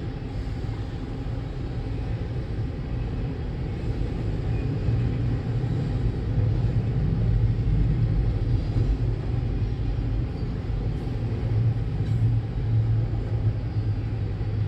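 Cars of a long freight train rolling past a crossing, a steady low rumble that swells a little midway.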